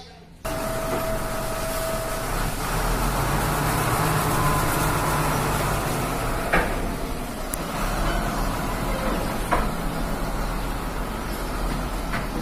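Diesel engine of a container tractor truck running steadily close by, with a few short sharp clicks partway through.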